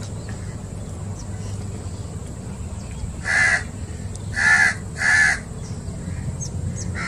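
Three short, harsh, caw-like bird calls in quick succession, starting about three seconds in, over a steady low background rumble.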